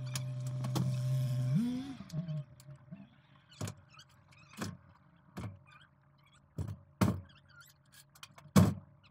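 A steady mechanical hum that swells, slides up in pitch and cuts off about two seconds in, followed by a run of separate knocks and thuds, the loudest near the end, typical of scrap being handled and loaded onto a truck.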